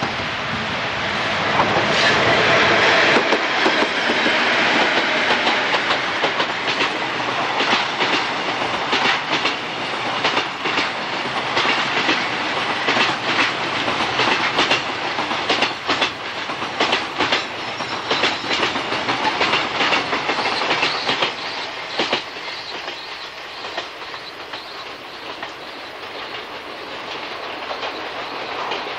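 A train passing close by, its wheels clacking over the rail joints in a long run of sharp clicks. It is loudest a few seconds in and grows fainter from about 22 seconds on.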